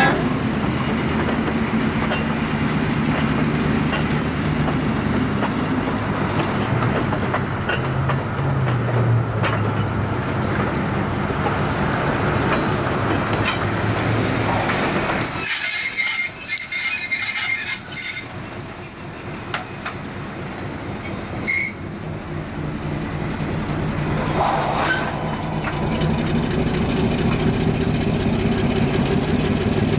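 End-cab diesel switcher locomotive running as it pulls tank cars. About halfway through, the engine sound drops away and the cars' steel wheels give a high-pitched squeal for several seconds, then the engine is heard again near the end.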